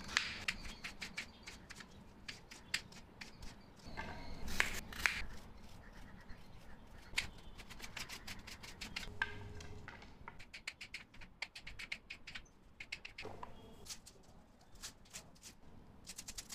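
Kitchen knife cutting vegetables on a wooden cutting board: scattered taps as it slices through zucchini, then quick runs of taps in the second half as spring onions are chopped and the blade hits the board.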